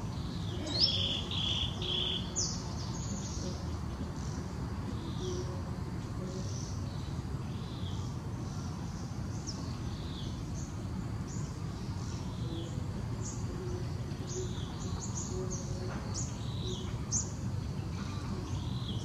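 Small birds chirping over and over, short high chirps that slide downward, over a steady low background rumble.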